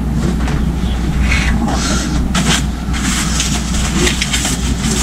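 Rustling and light knocks of disposable nappies being handled and pushed down into a boat's bilge, over a steady low rumble.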